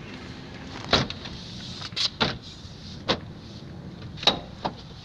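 The plastic retaining clips of a 2016 Toyota Tacoma's grille snapping into place as the grille is pressed back on: a series of about six sharp clicks at uneven intervals.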